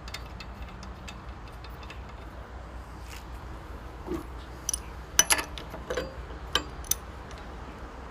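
Scattered light metallic clicks and knocks, the loudest cluster a little past halfway, over a low steady hum; no engine running.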